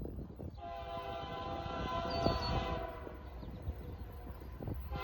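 Freight locomotive's multi-chime air horn, faint, sounding a long blast for a road grade crossing, then a second blast beginning at the very end.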